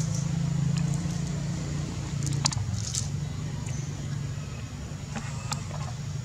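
A steady low mechanical hum, like an engine running, with a few brief high-pitched chirps over it.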